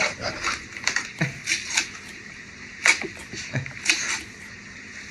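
A string of short knocks and clicks, about six spread unevenly, from a door and its handle being pushed and worked.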